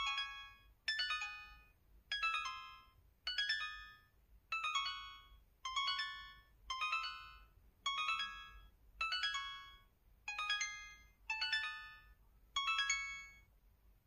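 SKY Mirach phone's dial-pad key tones set to 'Harp': twelve short plucked harp notes, one for each key pressed, about one a second. Each note rings and dies away, and the pitch changes from key to key.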